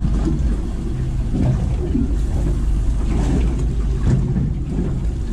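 A boat's outboard motor idling with a steady low hum.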